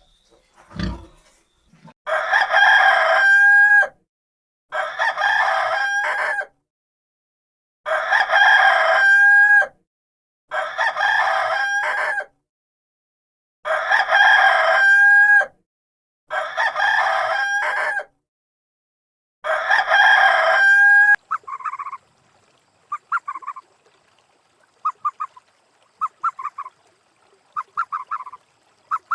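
Rooster crowing over and over: seven long crows of about two seconds each, every one ending on a drawn-out high note. After that, about three-quarters of the way in, come short choppy calls in quick clusters.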